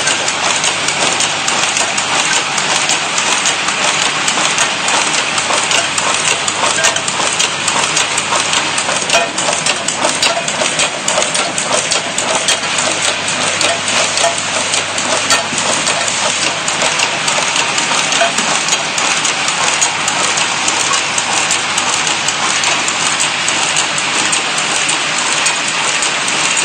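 Automatic PCB insertion machinery running: a steady, dense clatter of many fine metal clicks and rattles from its moving mechanisms and parts feeders.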